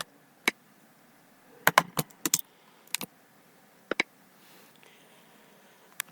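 Irregular sharp clicks and taps, about a dozen short ones, some in quick pairs, with near-quiet between them.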